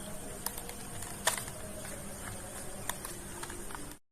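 Scattered light clicks and taps over a steady low hum and a faint high whine, the loudest tap about a second in; the sound cuts off abruptly just before the end.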